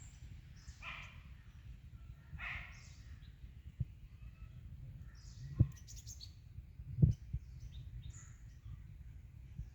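Birds calling and chirping, with scattered short calls, over a steady low rumble. A few short low thumps come about 4, 5.5 and 7 seconds in, the loudest near 7 seconds.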